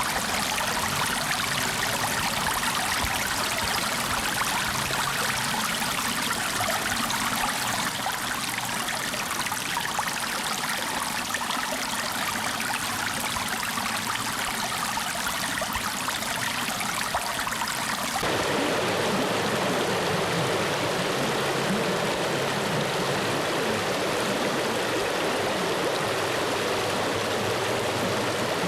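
Flowing water running steadily, like a stream. About two-thirds of the way through, the sound switches abruptly to a lower, fuller rush.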